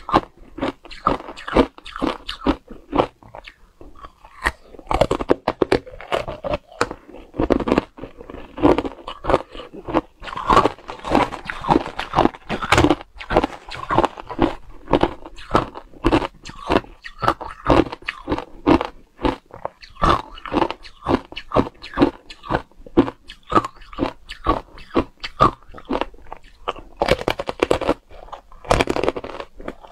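Close-miked crunching of hard matcha ice being bitten and chewed: a dense, irregular run of sharp cracks as the ice is broken between the teeth.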